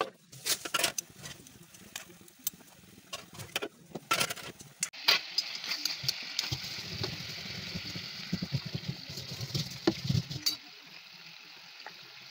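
Water and pork tipped from a steel bowl into a wok, with a string of clatters and knocks, then a steady hiss from the pan from about five seconds in.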